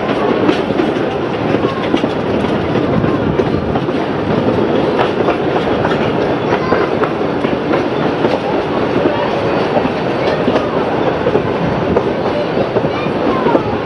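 Narrow-gauge heritage passenger train running along the track, heard from on board: a steady rumble of the carriages with wheels clicking and clacking over the rail joints.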